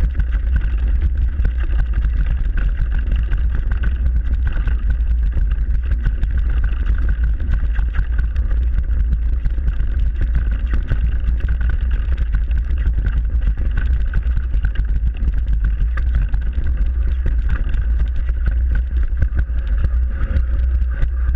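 Mountain bike descending a rough dirt singletrack, heard from a camera mounted on the bike or rider: a heavy, steady low rumble with constant rattling ticks as the tyres run over the trail.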